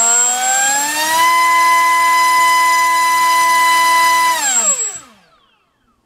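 MultiStar V-Spec 2205 2350kv brushless motor spinning a 5x4 glass-nylon propeller on a 3-cell battery during a thrust test. Its whine rises as the throttle climbs, holds steady at full throttle for about three seconds, then falls as it spins down and stops about five seconds in.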